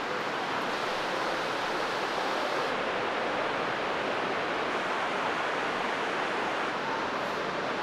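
Rushing water of a fast mountain river in a gorge, a steady, even hiss with no breaks.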